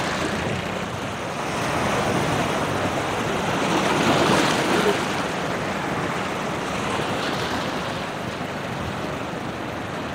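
Sea surf breaking and washing in among large shore boulders, swelling to its loudest about four seconds in and then easing.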